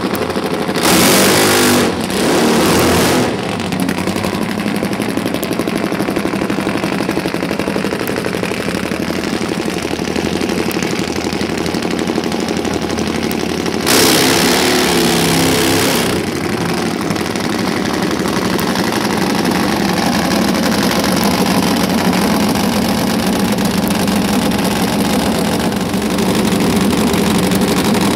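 Nitro-burning Top Fuel Harley-Davidson V-twin drag bike engines running loudly and steadily, revved hard in two short blasts about a second in and again for about two seconds midway.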